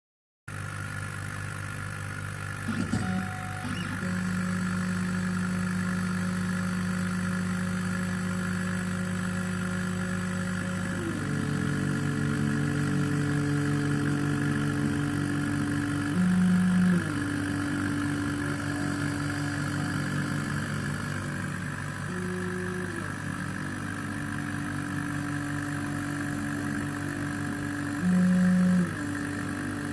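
Workshop machine running with a steady hum and a motor whine that jumps between steady pitches every few seconds.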